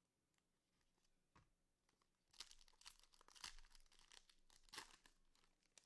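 A trading-card pack wrapper being torn open and crinkled: faint crackling rips in quick bursts, heard for about three seconds from around two seconds in.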